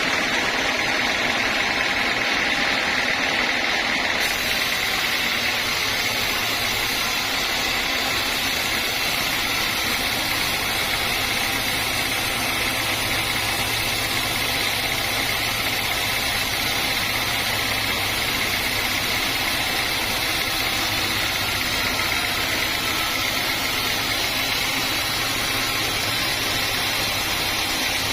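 Band sawmill running with a steady machine noise, a low hum coming in about six seconds in.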